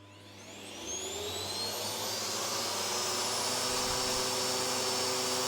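Hoover Smart upright vacuum cleaner switched on: its motor spins up with a rising whine over the first two seconds or so, then runs steadily.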